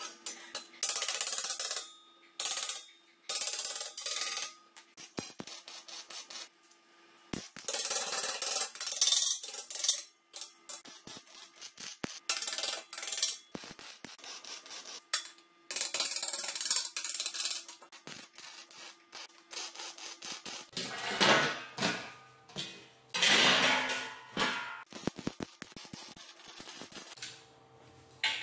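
Wire-feed (MIG) welder laying short welds on steel tube: a crackling sizzle in runs of one to two seconds, with pauses between the welds.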